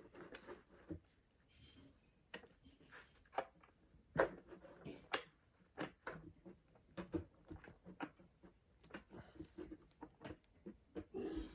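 Scattered light clicks, taps and knocks of things being handled and set down, with a couple of sharper knocks about four and five seconds in.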